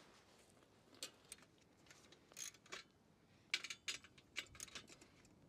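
Faint metallic clicks and light rattles as a Zozen chainsaw mill's brackets and rails are handled and clamped onto a Stihl chainsaw bar. The taps come singly at first and grow quicker about three and a half seconds in.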